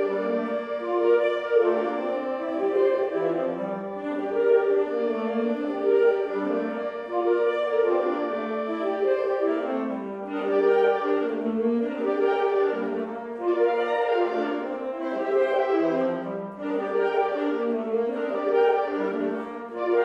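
Woodwind ensemble of flutes, clarinets, bass clarinet, saxophones and bassoons playing together, several parts moving note by note in short phrases that swell and ease off every second or two.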